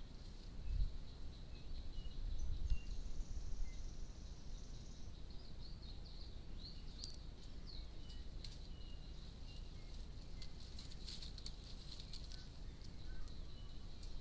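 Dry-woodland ambience: a steady high insect hum with short bird chirps, low rumbles in the first few seconds, and a run of sharp crackles in the middle as a Sykes's monkey walks over dry leaf litter.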